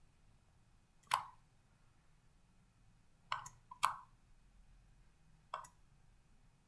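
Computer mouse clicking: four short, sharp clicks spread over several seconds, two of them close together.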